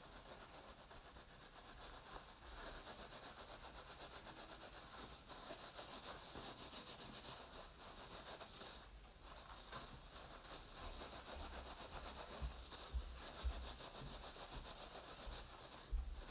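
Hands rubbing wet, soapy felting wool through a mesh in quick back-and-forth strokes, a soft steady hissing rub with a brief pause about nine seconds in. This is the compacting stage of wet felting, working the wool tight around its template.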